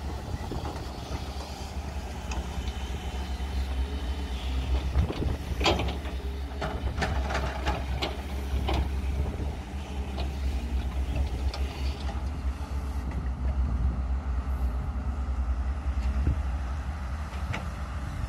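Caterpillar 320C hydraulic excavator's diesel engine running steadily as it digs soil, with a run of knocks and clatter from the bucket and falling dirt and rocks about five to nine seconds in.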